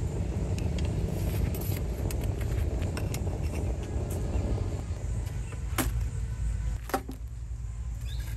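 Metal tandoor rods scraping against the clay wall as tandoori roti is peeled off and hooked out, with two sharp clicks near the end, over a steady low rumble.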